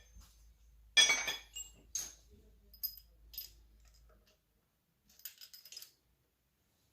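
Metal engine parts clinking as an oil feed line and its bolts are handled: one sharp ringing clink about a second in, a few lighter clinks after it, and a quick rattle of small clinks near the end.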